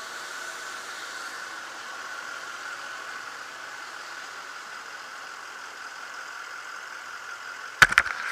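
Steady drone of an idling fire engine, with a few sharp knocks close together near the end.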